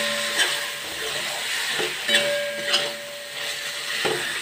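A spatula stirring and scraping eggplant and tomato masala in a kadai, with the spices frying and sizzling in the oil. There are sharp scrapes against the pan about half a second, two seconds and four seconds in.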